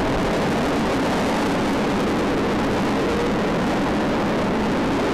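Bolliger & Mabillard inverted roller coaster train running, heard on an onboard camera as a loud, steady rushing noise.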